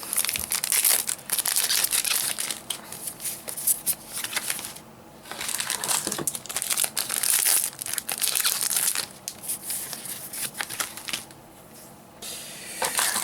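Foil booster-pack wrappers crinkling and tearing as trading-card packs are ripped open one after another, in bursts with short pauses around five seconds in and near the end.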